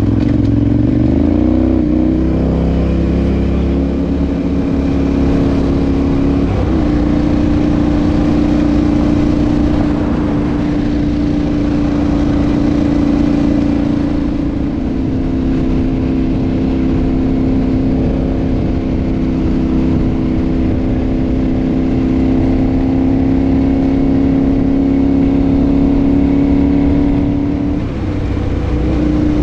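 Adventure motorcycle engine running under way: its pitch climbs over the first couple of seconds, then holds a steady cruising note, with brief throttle changes about seven seconds in and near the end.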